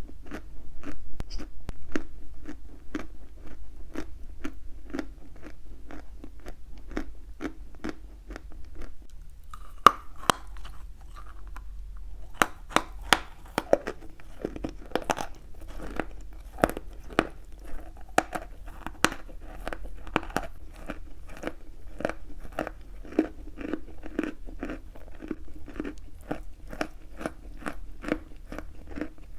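Chalk being bitten and chewed close to the microphone, with sharp crunches at about two a second. About ten seconds in there is one loud snap of a fresh bite, and the crunching after it comes denser and brighter.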